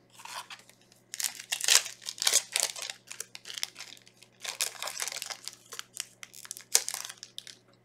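Yu-Gi-Oh booster pack wrapper crinkling and tearing as it is opened, in irregular bursts of crackling.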